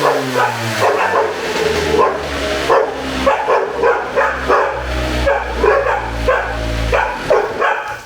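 Dogs barking repeatedly, about two barks a second, over a steady low hum that stops about a second before the end.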